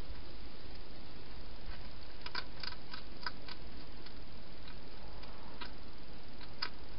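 A wild hedgehog eating from a bowl inside a plastic feeding box: scattered short crisp clicks of chewing, a quick run of them about two to three and a half seconds in and another near the end, over a steady hiss.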